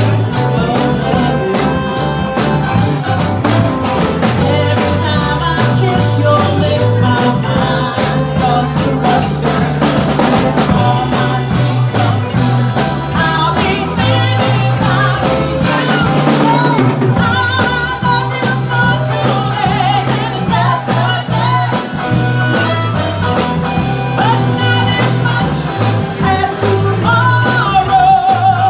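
Live band playing an upbeat pop-rock song, with drum kit, bass and a lead vocal singing over the band.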